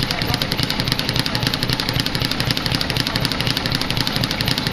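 Speed bag being punched nonstop: a fast, even drumming of the bag rebounding off its platform, many hits a second with no break.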